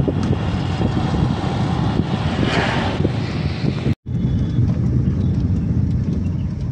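Wind buffeting the camera microphone: a heavy, uneven low rumble that swells briefly a little before the middle. The sound cuts out for an instant about four seconds in, then the same rumble goes on.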